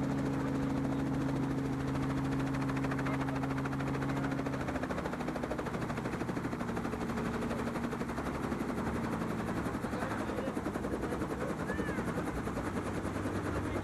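Helicopter in flight, its rotor beating fast and evenly over a steady engine hum; the hum changes pitch about five seconds in.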